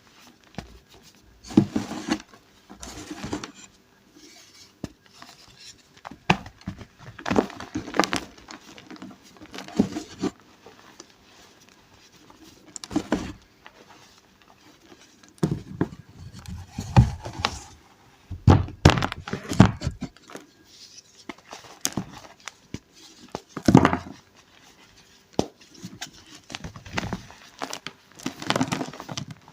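Pink gym chalk reforms being crushed, crunching and crumbling in irregular bursts with short pauses between them.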